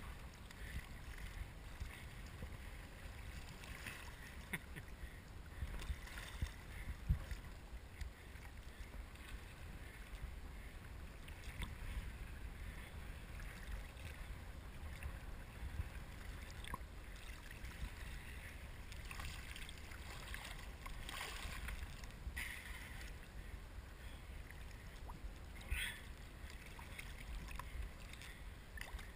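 Choppy water sloshing and splashing right against an action camera worn by a kiteboarder swimming in open water, over a low rumble of wind on the microphone. A few brief splashes stand out.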